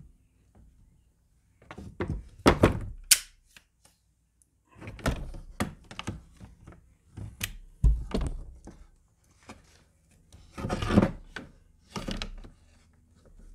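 A Daisy Avanti 753 air rifle's barreled action being pushed and fitted into its stock. The parts knock and clatter against each other in four separate bursts, with short pauses between them.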